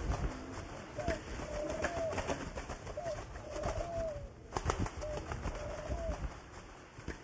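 Pigeons cooing: a short, wavering coo about every second and a half, over scattered clicks and a low rumble.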